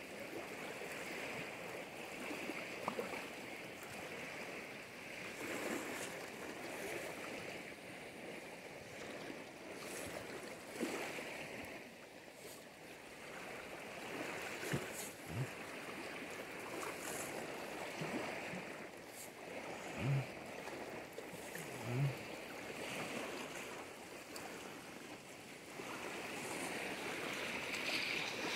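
Sea surf washing on the shore, a steady rush. Twice, two seconds apart in the last third, a short low sound rises above it.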